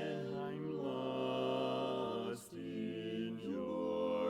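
Barbershop quartet singing unaccompanied, holding long sustained chords between lyric lines, with a brief break about halfway through before the next chord.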